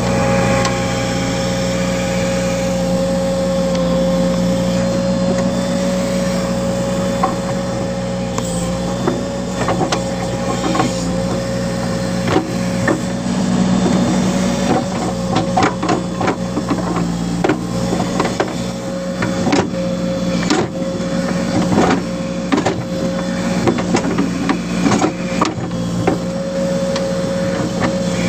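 Tractor loader backhoe's diesel engine running steadily under load, with a constant hum and a steady higher whine, while the backhoe bucket digs into clay soil. Scattered knocks and clunks from the bucket and arm start about seven seconds in and come thick and fast through the middle and latter part.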